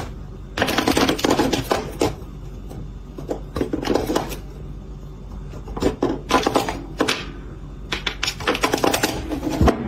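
Metal cap of a desk cable grommet rattling and clattering in its hole as it lifts and drops back. The clicks come in irregular bursts with short pauses between them.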